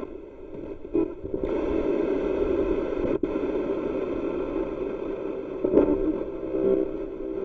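Spirit box sweeping through radio frequencies, giving a steady hiss of radio static. It gets louder about a second and a half in and cuts out for an instant around three seconds in.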